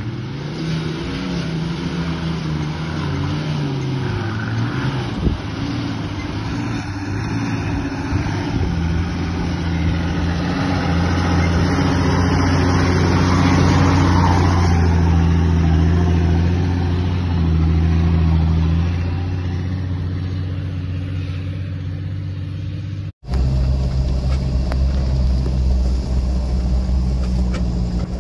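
Off-road 4x4's engine running under load, its pitch shifting with the revs and then holding fairly steady. Near the end it cuts abruptly to another steady engine sound.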